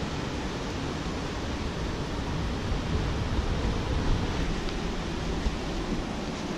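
Steady rushing of ocean surf mixed with wind buffeting the microphone, which adds a low rumble, plus a few soft knocks.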